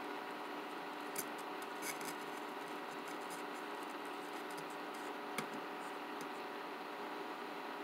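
A few faint scratches and light clicks from a soldering iron tip working desoldering wick on a power-supply circuit board, over a steady low hum.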